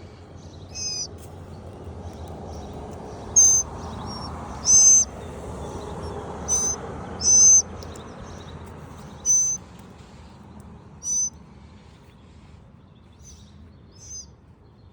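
Baby birds giving short, high-pitched begging cheeps, about eight separate calls spread out with gaps of a second or more, loudest in the middle and fading near the end.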